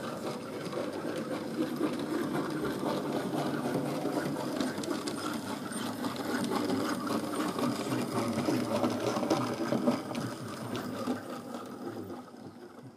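Small model railway locomotive's electric motor whirring as it runs along the track, with its wheels ticking over the rails; the sound grows louder as it passes close and fades away near the end.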